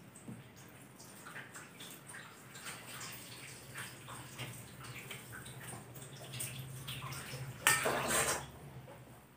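Eating by hand: soft wet clicks and squishes of fingers mixing rice and curry on a steel plate, together with chewing, with a louder scraping burst about eight seconds in. A low steady hum runs underneath.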